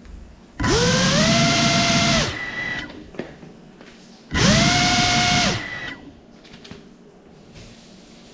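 Cinelog 35 cinewhoop's brushless motors spinning up twice in short throttle bursts. Each burst is a loud whine that rises in pitch, holds for about a second and a half, then cuts off.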